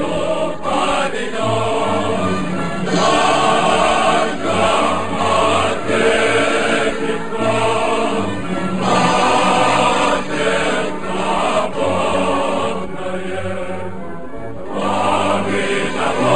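Background music: a choir singing slow, sustained phrases.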